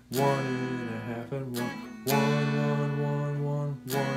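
Guitar chords strummed about four times, each struck sharply and left to ring out.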